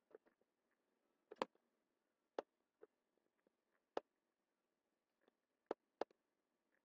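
Computer mouse button clicking, several sharp clicks spaced irregularly about a second apart.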